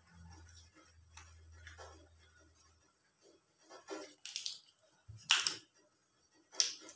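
Banana leaf crackling and rustling in short bursts as it is folded into a parcel around cake batter, four or five times in the second half.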